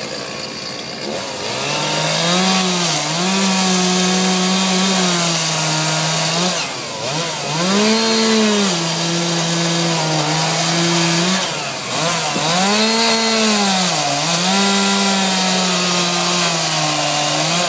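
Two-stroke chainsaw cutting into an upright log at high revs in three long passes, the engine note dipping briefly between them.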